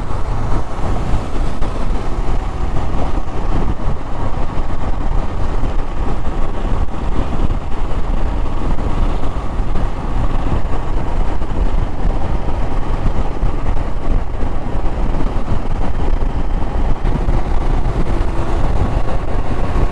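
Royal Enfield Himalayan motorcycle under way: steady engine and road noise mixed with wind rushing over the microphone, without any sudden change.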